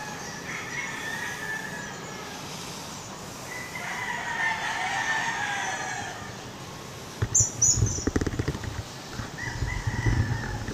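A rooster crowing, three long crows one after another. A run of low thumps and rustles comes just past the middle.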